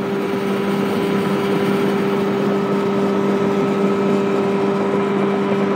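A small boat's engine running steadily at one constant pitch under way, with the rush of water and wind around the hull.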